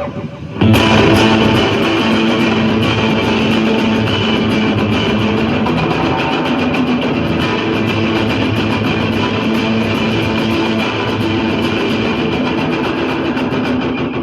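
Overdriven electric guitar played with rapid, even picking through a delay pedal, the repeats blurring into a dense, steady wash. It starts about half a second in and fades near the end.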